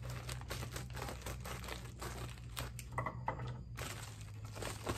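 A plastic poly mailer crinkling and crackling as it is cut open with scissors and then handled and pulled open.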